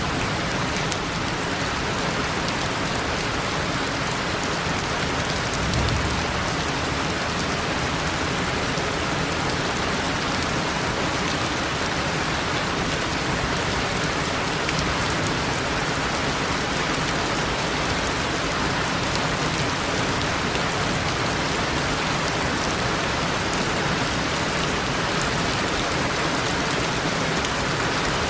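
Steady rain falling, an even hiss of drops hitting surfaces, with a brief low thump about six seconds in.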